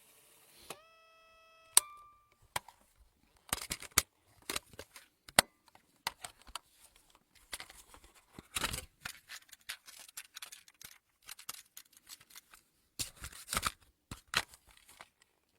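Fast-forward sound effect: a brief rising tone, a sharp click, then a long run of rapid, irregular clicks and crackles that stops shortly before the end.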